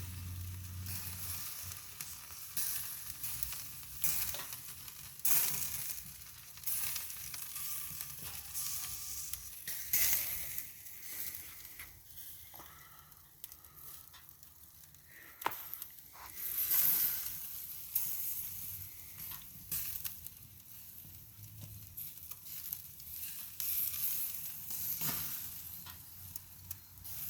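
Spatchcocked chicken sizzling in a smoker, with irregular crackles and pops over a steady high hiss.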